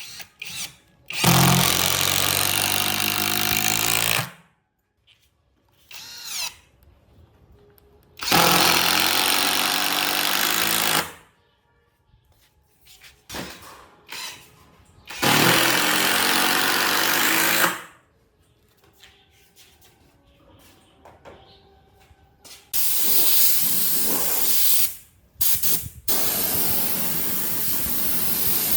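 A power tool run in short bursts: three runs of about three seconds each with pauses between, then a longer, hissier run near the end.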